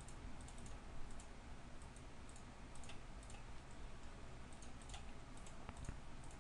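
Faint, irregular clicks of a computer mouse, several over a few seconds, over a steady low hum.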